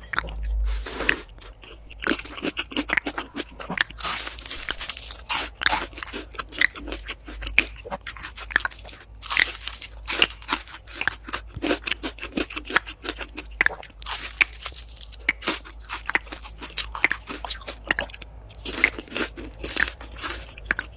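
Close-miked eating of crunchy food: repeated bites and chewing, a dense run of sharp, irregular crunches.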